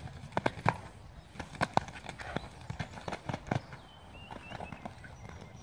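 Horse cantering on a sand arena: hoofbeats in quick groups of three, thinning out after about three and a half seconds.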